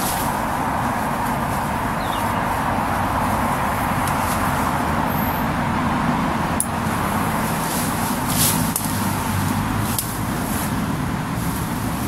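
Steady rush of road traffic on a busy roundabout, with a few short clicks and rustles from a hammock being handled.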